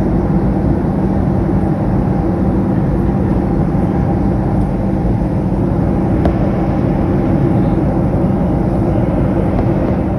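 Steady cabin noise of a Southwest Boeing 737 jet airliner in cruise: even engine and rushing-air noise heard inside the cabin, with a constant low hum.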